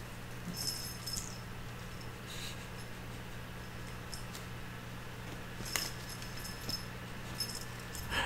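Kittens batting at a feather toy, which gives a light metallic jingle a few brief times: about a second in, around six seconds and near the end. A steady low hum runs underneath.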